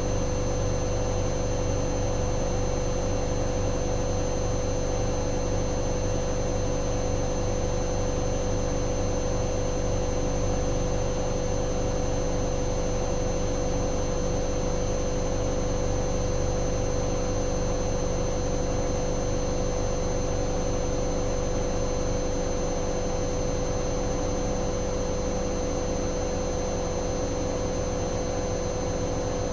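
Hoover Dynamic Next washing machine on a spin-only cycle, drum spinning at speed with a steady motor whine and hum.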